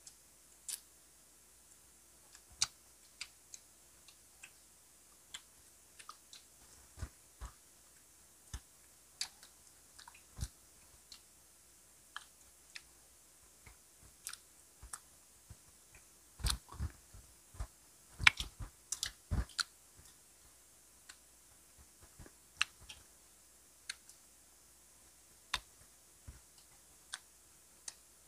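Close-miked chewing and biting of grilled street-food skewers: scattered short, sharp mouth clicks and bites, busiest in a cluster about halfway through.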